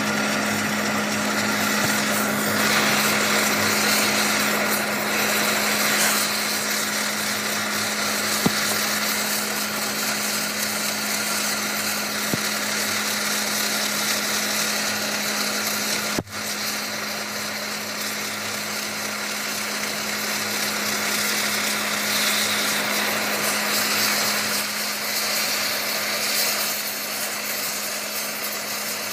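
A power tool or shop machine running steadily, with a constant hum under a broad grinding noise. It breaks off for an instant about halfway, then carries on.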